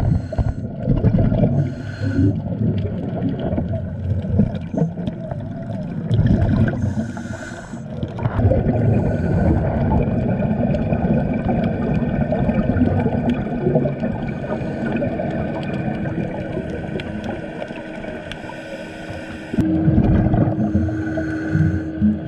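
Scuba diver's breathing on a regulator, recorded underwater: a short hiss on each inhale, then a long rumbling burst of exhaled bubbles, repeating every several seconds. A faint steady hum joins in about two thirds of the way through.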